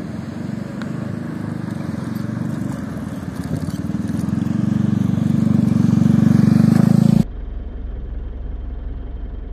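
A motor vehicle engine running close by, its low pulsing sound growing louder, then cutting off suddenly about seven seconds in, leaving a quieter steady low rumble.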